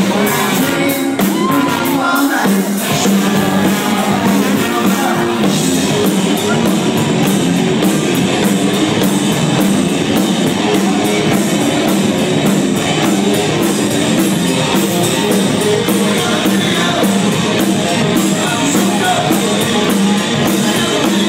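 Rock band playing live, loud and steady, with a regular drum beat and a singing voice over the band, recorded on a phone.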